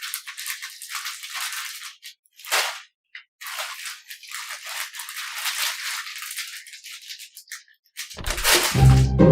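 Irregular high-pitched rattling and rustling that comes and goes in short bursts. About eight seconds in, louder music with low plucked strings begins.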